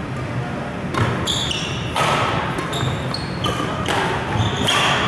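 Badminton rally: sneakers squeak briefly and repeatedly on the court floor among footfalls, with sharp racket strikes on the shuttlecock about a second apart.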